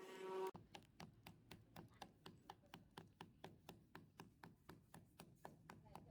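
Faint, rapid, even tapping, several light strokes a second, starting about half a second in.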